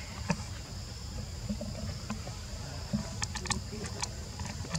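Steady, high-pitched insect buzzing over a low background rumble, with a few sharp clicks, including a quick cluster of them about three seconds in.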